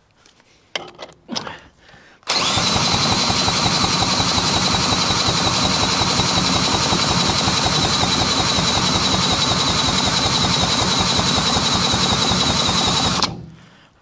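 Cordless drill spinning over an old Villiers two-stroke lawnmower engine at the flywheel: a loud, even motor whine with fast regular pulsing of the engine turning over. It starts about two seconds in, runs for about eleven seconds and stops abruptly.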